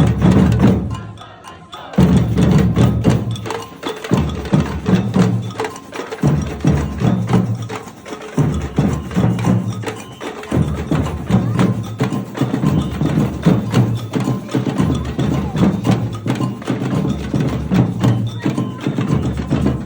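Live percussion music: fast, dense wooden knocking over a low drum beat that comes in phrases of about two seconds.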